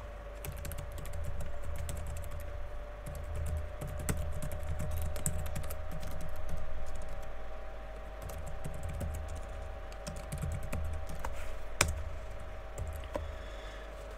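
Typing on a computer keyboard: irregular runs of key clicks with short pauses, and one sharper keystroke near the end, over a faint steady hum.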